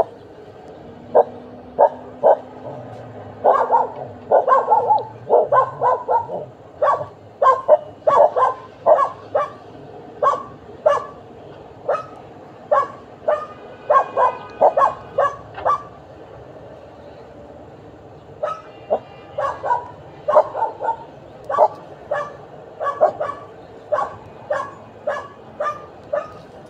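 A dog barking over and over in short, sharp barks and yips, about two a second, breaking off for a couple of seconds past the middle before starting again.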